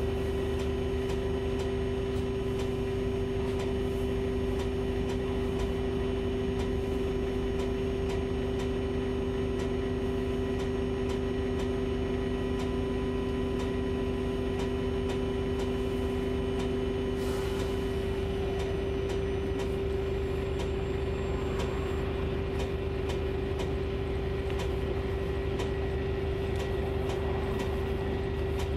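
Cabin noise of a Volvo 7900A Hybrid bus: a steady hum with a constant whine on top. A second, lower tone stops about two-thirds of the way through, with a brief hiss at about the same moment.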